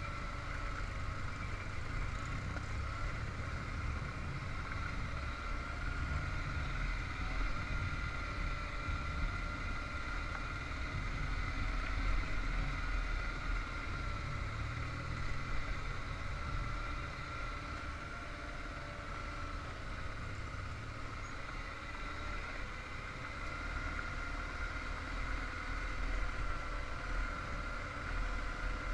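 Motorcycle engine running at a steady cruise, with wind rumbling on the microphone.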